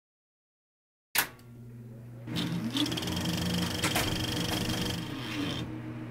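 About a second of silence, then a sudden hit, followed by a steady mechanical-sounding run with a low hum and a few held tones, one of which glides up and back down.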